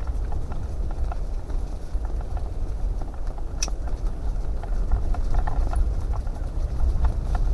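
Fishing rod and reel being worked while playing a perch on the line: many light, irregular clicks and taps, with one sharper click about three and a half seconds in, over a steady low rumble.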